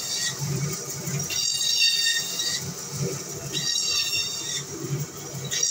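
Band saw cutting a whole fish into steaks, with a high whine each time the blade goes through, about every two seconds: three cuts, and a fourth starting near the end.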